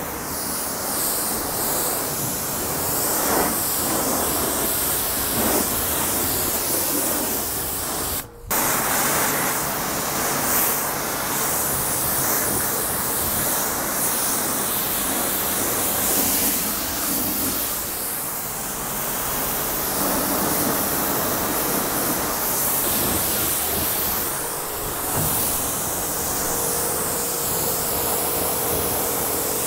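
Water jetting steadily from a hose-fed spray wand onto a car's paint and glass, rinsing the shampoo off. The spray stops briefly about eight seconds in, then carries on.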